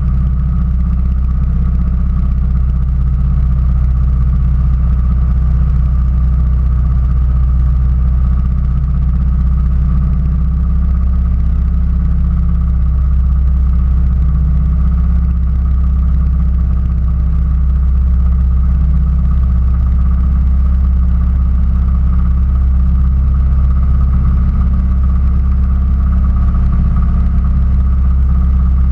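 Railroad speeder (track motorcar) engine idling: a loud, steady low rumble with a faint steady whine above it that does not change.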